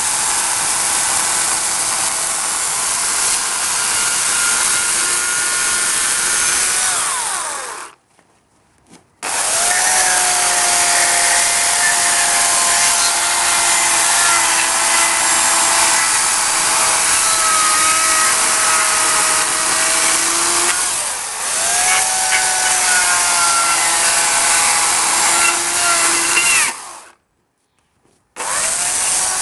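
Dolmar corded electric chainsaw cutting into beech wood, a steady motor whine over the rasp of the chain. Twice, about eight seconds in and again near the end, the motor winds down and stops, then starts up again.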